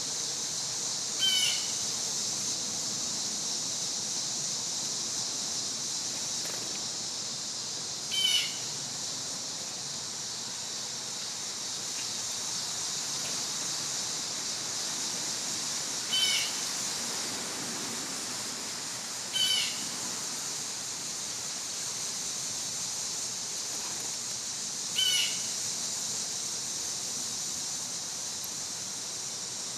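A steady, high-pitched drone of cicadas, with a bird giving five short calls several seconds apart.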